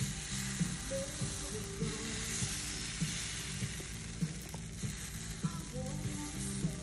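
Pancake batter sizzling on a hot electric skillet as it is squeezed from a squeeze bottle, over background music with a steady beat.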